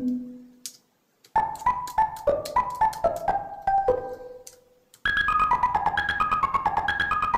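Teenage Engineering OP-1 synthesizer playing a sampler patch from its keys: a descending run of short pitched notes, then after a brief pause about five seconds in, a second, quicker descending run over a rapid, even ticking pulse.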